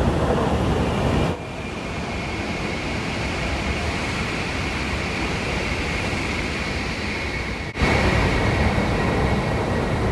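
Long Schindler escalator running, a steady mechanical rumble with a faint steady high whine. The sound drops suddenly in level about a second in and comes back louder near the end.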